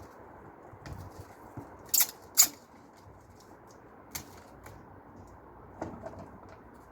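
Scattered sharp clinks and knocks of tools and metal parts being handled while dismantling a scrap dishwasher, with two loud ones about half a second apart roughly two seconds in.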